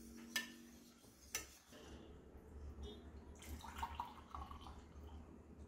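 Faint kitchen sounds while a milk drink is being prepared: two light knocks of utensils, about a third of a second and a second and a half in, over a low rumble.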